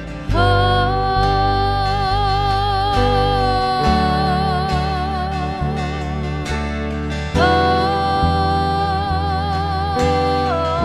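Worship band playing an instrumental interlude: strummed acoustic guitar over steady bass notes, with a long held melody note with vibrato sounding twice.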